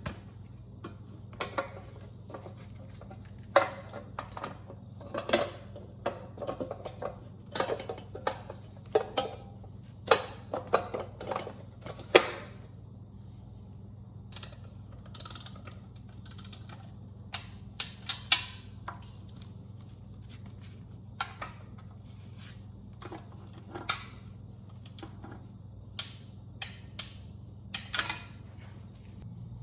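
Metal hand tools and engine parts clinking and knocking at irregular intervals, busiest in the first half, over a steady low hum.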